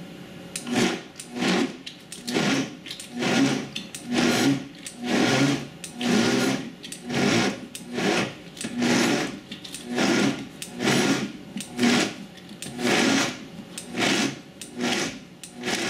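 Vitamix Professional Series 750 blender pulsed in short bursts about once a second, its motor and blades chopping whole raw vegetables, cashews and water into a coarse purée.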